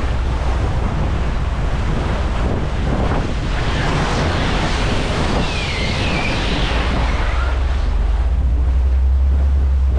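Wind buffeting the microphone, with water rushing along the hulls and a steady low rumble underneath.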